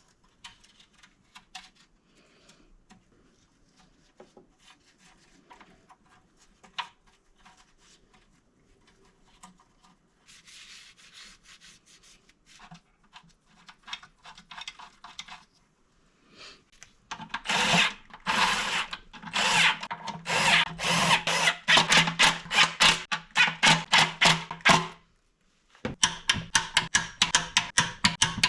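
Tools working fasteners on a BMW M62TU V8's intake manifold during disassembly. Faint clicks and handling noises come first; from about halfway there is a loud, rapid run of repeated rasping strokes, which break off briefly and then start again near the end.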